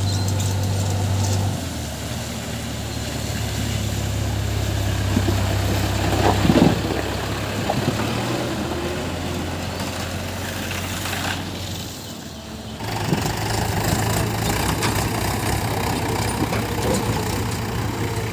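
Diesel engine of earth-moving machinery running steadily. Its pitch shifts a couple of times as the engine speed changes, with a short louder clatter about six and a half seconds in.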